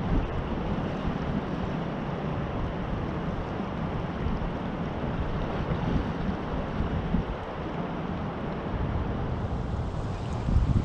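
Steady rush of a wide, high-flowing river, with wind buffeting the microphone in uneven low rumbles.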